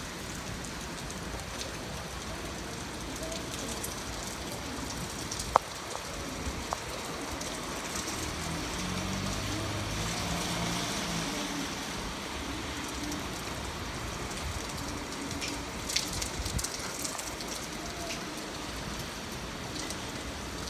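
Heavy rain falling steadily on an asphalt parking lot, an even hiss of drops on the wet pavement. A few sharp ticks stand out, the loudest about five and a half seconds in.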